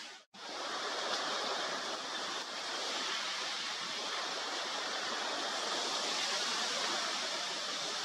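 A steady, even rushing hiss with no birdsong in it, starting right after a momentary dropout at the very beginning.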